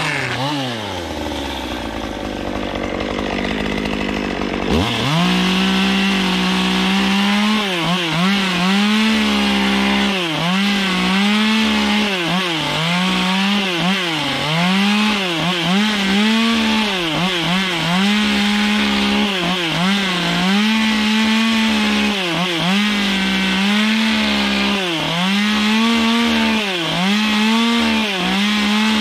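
Stihl two-stroke chainsaw dropping back to idle, then revved up sharply about five seconds in. It cuts into the end of a fir plank, its engine note dipping and recovering about every second and a half as the chain bites into the wood.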